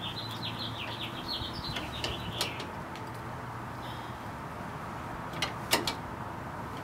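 A small bird chirping a quick run of short high notes for the first couple of seconds. A few sharp metallic clicks from a hand tool working the Jeep's lower shock bolt come near the end, the loudest sounds here.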